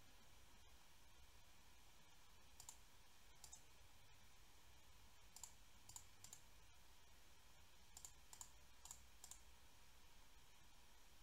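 Near silence with faint computer mouse clicks, about ten of them in small groups spread through the middle of the stretch.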